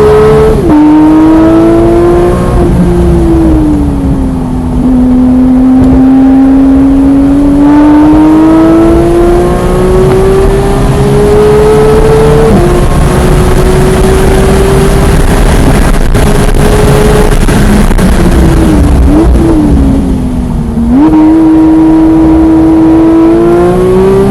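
Porsche 991.1 GT3's naturally aspirated flat-six engine at racing speed, heard through the onboard camera. The revs climb in long sweeps, with sharp drops at upshifts about half a second in and about twelve seconds in. Around nineteen to twenty-one seconds in they fall with short blips as it slows for a corner, then climb hard again.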